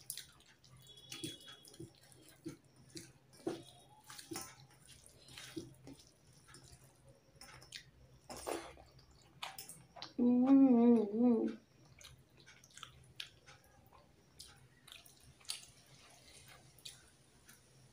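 Eating rice and fish curry by hand from a steel plate: soft wet squishes and small clicks as fingers mix the rice, and chewing. About ten seconds in, a woman's voice gives a short wavering hum, the loudest sound.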